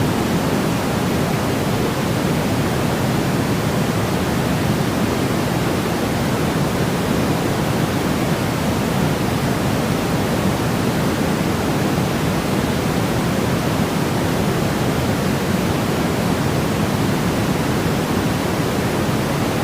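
Steady, unchanging white noise: an even, deep hiss, heavier in the low end than the highs, with no breaks or changes.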